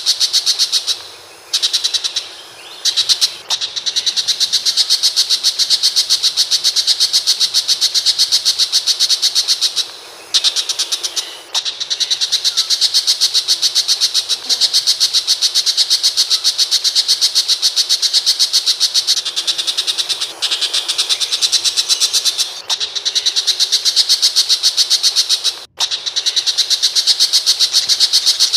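Tiger shrike (pentet macan) calling: a harsh, high chatter of short notes repeated quickly and evenly, broken by a few brief pauses.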